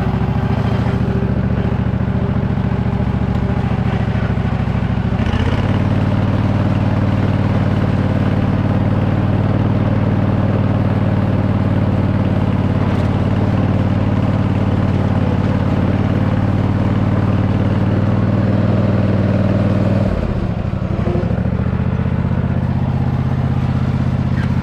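An engine running steadily. Its speed rises about five seconds in and drops back near the end.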